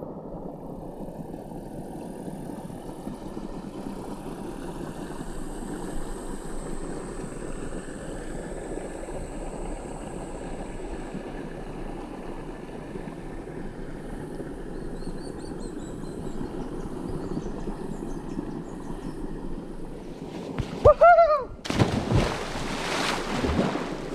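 Shallow creek water flowing and rippling in a steady rush. Near the end, loud splashing as a person swims through the creek.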